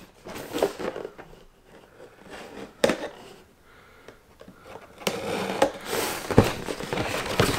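A small blade scoring and slicing packing tape along a cardboard shipping box, with scratchy cutting strokes and a few sharp clicks. About five seconds in the lid and flaps are pulled open, and the cardboard scraping and rustling grows louder.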